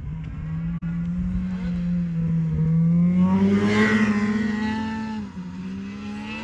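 Snowmobile engine running under throttle as it climbs the hill. The pitch rises steadily and is loudest about three to four seconds in, then drops a little past five seconds and holds steady.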